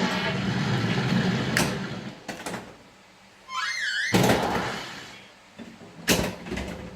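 White Water pinball machine running: a low rumble, sharp knocks, a short warbling electronic beep that zigzags up and down, and loud noisy bursts about four and six seconds in. Its sound system is faulty, so its effects sound more like an early-80s pinball.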